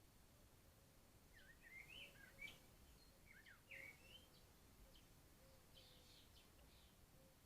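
Faint songbird song: quick warbled phrases of rising and falling notes from about a second and a half to four seconds in, then a few softer chirps.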